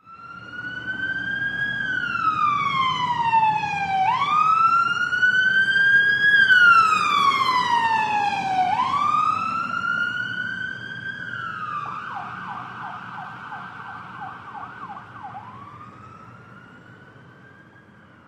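Emergency vehicle siren wailing, its pitch sweeping slowly up and down, with a faster warbling stretch about two-thirds of the way through. It grows louder, then fades steadily away.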